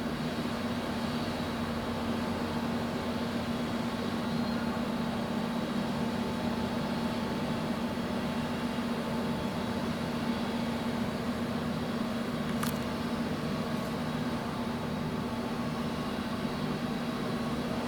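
Steady drone of a ship's engine and machinery heard on board, with one short click about two-thirds of the way through.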